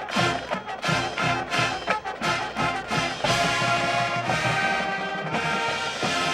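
High school marching band playing: brass over a steady drum beat, then a held brass chord from about three seconds in.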